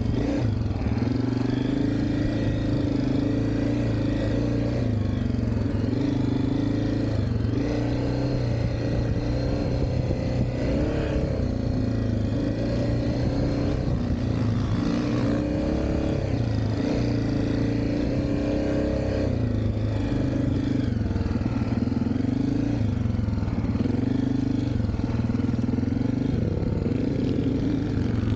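Dirt bike engine being ridden hard on a dirt track, its pitch repeatedly rising under throttle and dropping back as the rider works the throttle and gears.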